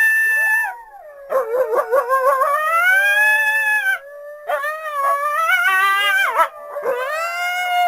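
Coyote howling: a run of long, wavering howls that rise and fall in pitch, broken by short gaps of about half a second.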